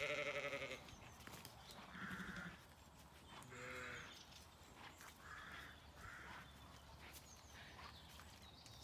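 Ewes bleating: one loud, wavering bleat right at the start, then two fainter bleats about two and four seconds in, and weaker calls further off after that.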